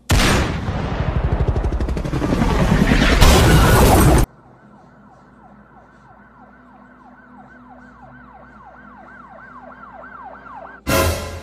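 Helicopter sound effect: a loud rushing noise with a fast rotor-like flutter that swells for about four seconds and cuts off suddenly. A faint run of quick falling whistle-like sweeps follows, about three a second, and a short loud burst comes near the end.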